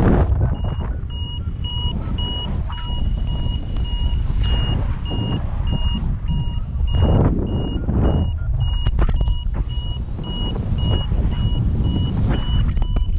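Paragliding variometer beeping, a quick steady run of short high beeps about three a second, the sign of climbing in a thermal. Heavy wind rush on the microphone runs underneath.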